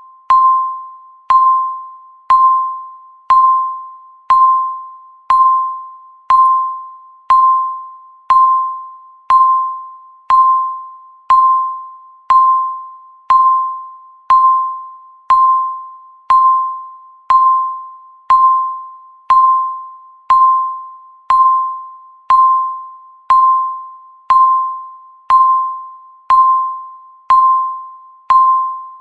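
Countdown timer's electronic beep, one clear tone struck once a second and fading away after each strike, marking off each second of the count.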